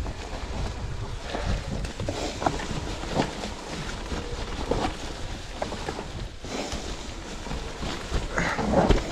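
Cube Stereo Hybrid electric mountain bike descending a rocky trail covered in dry leaves: tyres rolling and crunching over leaves and stones, with frequent sharp knocks and rattles from the bike over rough ground, loudest near the end. Steady wind rumble on the chest-mounted camera's mic.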